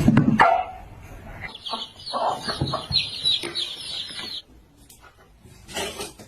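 An animal calling in a quick run of short, high notes for about three seconds, after a brief loud sound at the start.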